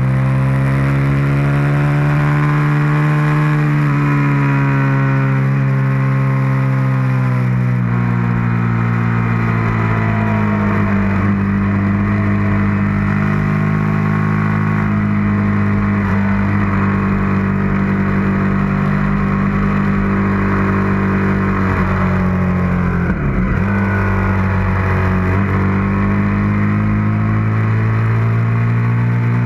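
Suzuki SV650's 645 cc V-twin engine pulling hard on track, heard from on board the bike. Its pitch climbs for the first few seconds, then sinks, holds steady, and drops briefly a little after two-thirds of the way through before climbing again.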